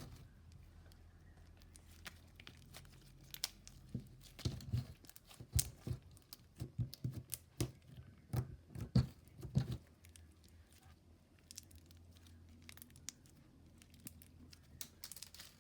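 Bead slime being squeezed and stretched by hand, giving a run of sticky crackling pops and clicks, densest in the first ten seconds and thinning out after.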